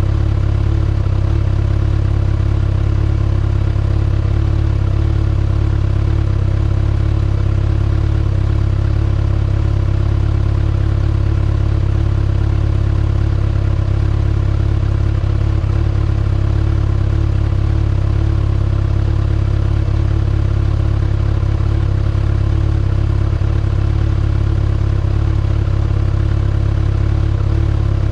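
2019 Kawasaki ZX-6R's 636 cc inline-four running through its stock exhaust at a steady, unchanging engine speed.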